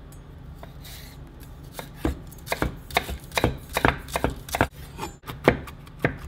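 Chef's knife slicing spring onion on a wooden chopping board: an irregular run of sharp knocks, several a second, as the blade strikes the board, starting about two seconds in. Near the end it changes to chopping cashew nuts on the same board.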